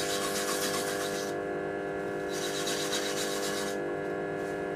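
Homemade lathe's motor humming steadily at slow speed while a clump of wood shavings is rubbed against the spinning wooden bowl, making a scratchy hiss that stops about a second in and comes back for a stretch in the middle. The rubbing is meant to work the oil from the shavings into the wood for a natural finish.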